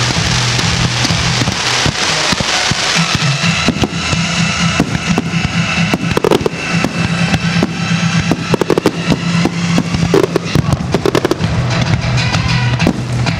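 A fireworks display going off, with rapid bangs, pops and crackling from shells and fountains, over loud music with a beat. The pops come thickest in the middle and latter part.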